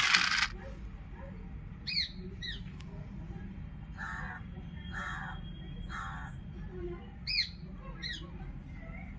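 A crow cawing three times about a second apart, with another bird's short falling chirps a little before and after. A brief burst of noise comes right at the start.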